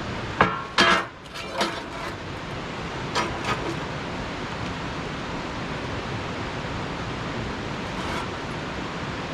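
Steady rushing noise with a handful of sharp knocks and clanks in the first few seconds.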